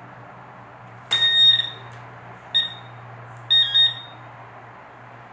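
High-pitched electronic beeping from a handheld metal-detector pinpointer that has been switched on: a long beep about a second in, a short beep, then two quick beeps close together.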